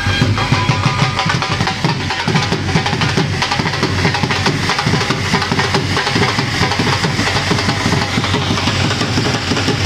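Dhol drums beating a fast, steady rhythm, over the continuous hiss of ground-fountain fireworks spraying sparks.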